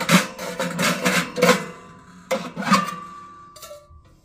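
Steel oven tray clanking and scraping against the steel oven compartment of a wood-burning tent stove as it is handled and slid. A run of sharp metallic clanks and scrapes, with one clang near the middle ringing on for about a second.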